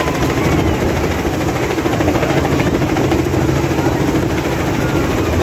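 Light helicopter running steadily with a fast, even rotor blade chop as it descends low to land.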